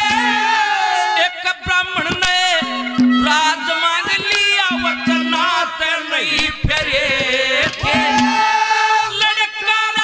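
Male singer singing a Haryanvi ragni in a long, ornamented melodic line through a stage PA microphone. Behind him are held instrumental notes and quick hand-drum strikes.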